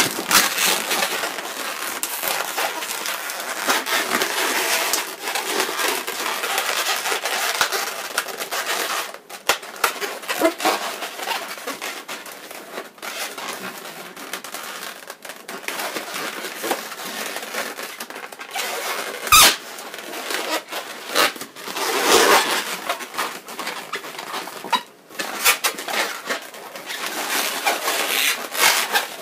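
Latex modelling balloons squeaking and rubbing as they are twisted, squeezed and threaded by hand, with a sharp snap about two-thirds of the way through.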